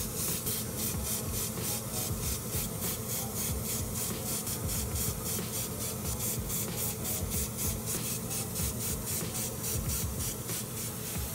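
Airbrush spraying semi-gloss clear coat onto small plastic model parts: a steady hiss of air and paint that pulses rapidly and evenly, with a low hum under it.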